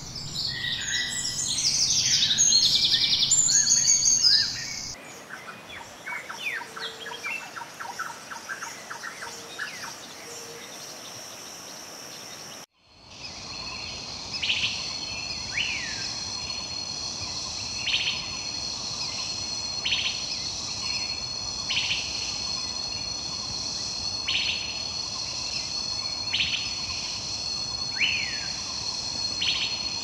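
Birds chirping and calling, first loud and dense, then a quieter rapid trill. After an abrupt cut about 13 seconds in, a steady high insect drone runs under a bird repeating a short call about every two seconds, some of the calls falling in pitch.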